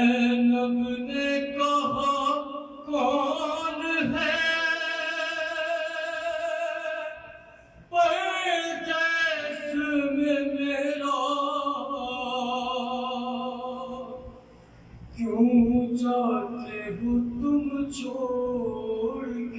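A man singing an unaccompanied devotional kalam in long, wavering held notes, pausing twice.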